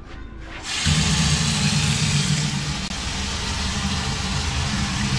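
Faucet turned on at a stainless steel sink about a second in: hot water runs steadily into the steel basin and down the drain, a constant rush with a low hum underneath.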